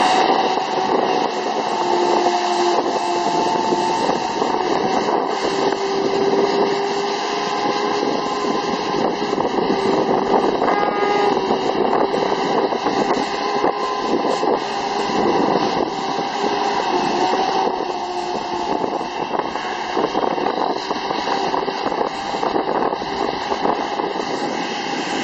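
Truck towing a water spray tanker, its engine running while water sprays from the rear spray bars: a steady rushing noise with a faint hum that shifts slightly in pitch.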